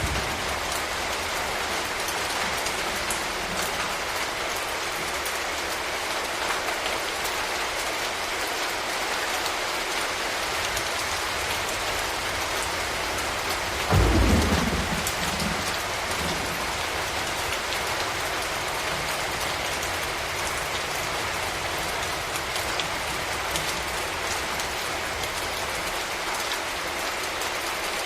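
Steady rain falling, with one short rumble of thunder about halfway through that fades within a couple of seconds.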